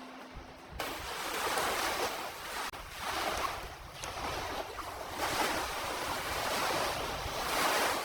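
Blizzard wind blowing hard in surging gusts that swell and ease every second or two, starting abruptly about a second in.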